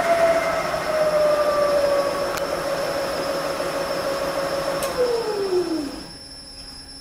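Variable-speed spindle of a Millport vertical knee mill whining as it runs, its pitch sliding slowly down as the speed is lowered. About five seconds in the whine falls steeply and dies away as the spindle winds down to a stop.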